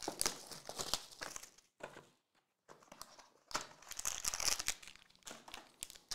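Plastic wrapping on a trading-card pack or box being torn open and crinkled by hand. The rustling comes in two spells with a short pause about two seconds in.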